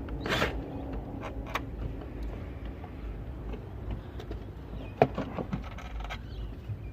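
A short whirr of a cordless drill backing out a dashboard screw right at the start. Then light clicks and rattles of screws and plastic dash trim being handled, with one sharp click about five seconds in.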